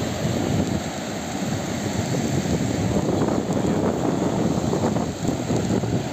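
Wind buffeting the microphone over the steady wash of rough surf breaking on the shore.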